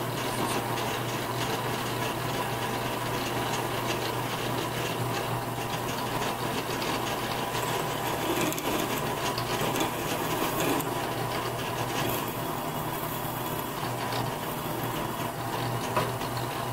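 Drill press motor running steadily while an 11/64-inch twist drill bores through 1144 stress-proof steel, the cutting noise of the bit in the metal over the constant motor hum.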